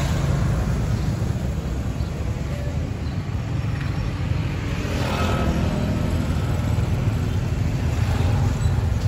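Street ambience dominated by a steady low rumble of road traffic, with a vehicle passing close by about five seconds in.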